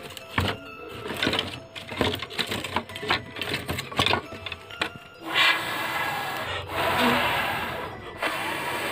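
Sticks of firewood knocking and scraping against each other and the stove as they are pushed into the firebox of a wood-burning stove. From about five seconds in come long breathy blasts, with short pauses between them, of air blown through a pipe onto the embers to fan them into flame.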